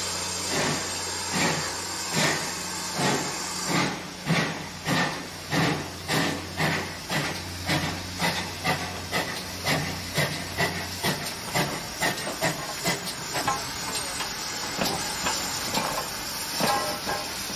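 Small steam tank locomotive pulling away with a train of coaches. Its exhaust beats come about one a second at first and quicken to about three a second as it gathers speed, over a steady hiss of steam.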